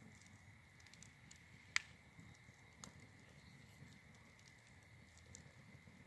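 Wood fire burning in a metal fire pit, crackling faintly with scattered small snaps, one sharp pop about two seconds in and a smaller pop about a second later.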